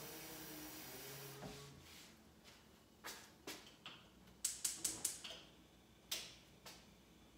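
Faint clicks and knocks of cookware being handled at a gas stove, with a quick run of clicks at about five a second in the middle, after a low hum in the first second and a half.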